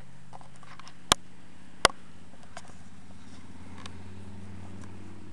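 A sleeping Missouri Fox Trotter horse humming, low and steady. Two sharp clicks come about a second in, less than a second apart.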